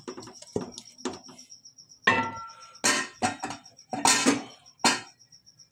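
Wooden mashing stick pounding cooked mustard greens and spinach in an aluminium pot: an irregular run of wet thuds and clinks of wood against the pot, heavier in the second half and stopping shortly before the end.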